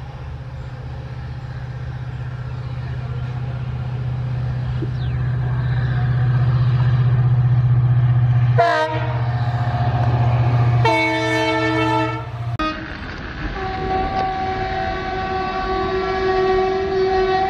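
WDP-4 diesel locomotive's EMD two-stroke engine working hard as it approaches, a steady low drone growing louder. Its horn gives a short toot about nine seconds in and a longer blast around eleven to twelve seconds. After a sudden cut, an electric locomotive's horn sounds a steady two-note blast through the last few seconds.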